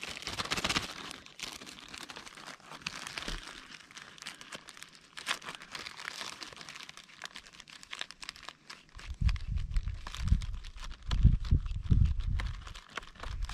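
A clear plastic zip-top bag crinkling and rustling as fingers work the coffee maker's plastic basket inside it, knocking the spent espresso puck out into the bag. About nine seconds in, low dull bumps join the crinkling.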